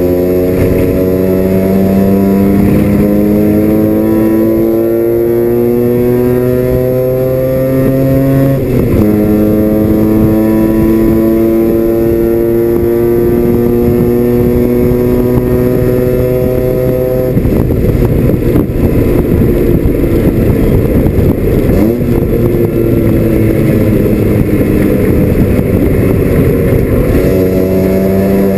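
Mazda RX-7 FC's 13B two-rotor rotary engine heard loud from inside the race car's cabin, pulling hard with its note climbing steadily, an upshift about nine seconds in, then a second long climb. After about seventeen seconds the note breaks up into a rough, unsteady sound for about ten seconds before the engine pulls again near the end.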